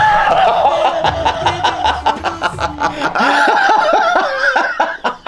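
A man and a woman laughing hard together, a rapid run of repeated laughs through the middle that eases off near the end.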